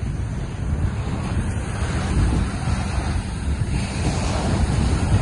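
Rough ocean surf washing and breaking, with strong wind buffeting the microphone in a steady low rumble.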